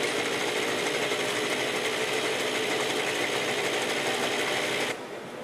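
Yamaha RX100's 98 cc single-cylinder two-stroke engine running on a factory test rig, a steady fast buzzing rattle. It drops away sharply near the end.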